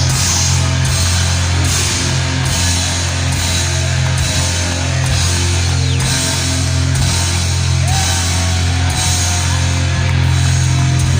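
Heavy metal band playing live: a heavy, steady bass drone under distorted guitar, with cymbal crashes recurring in an even beat a little more than once a second.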